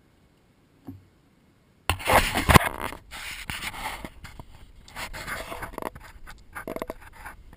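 Onboard sound of a Losi Mini 8ight electric RC buggy. After near silence, a sudden loud clatter of knocks and scrapes comes about two seconds in as the car sets off from the bench onto the lawn. Irregular rattling and rustling follow as it drives over the grass.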